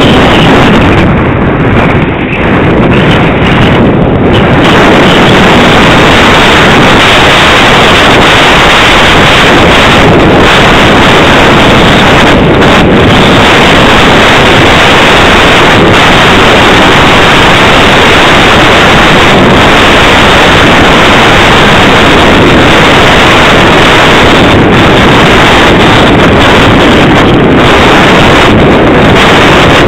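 Loud, steady wind noise from the airstream rushing over the on-board camera's microphone on a flying EasyStar II model plane.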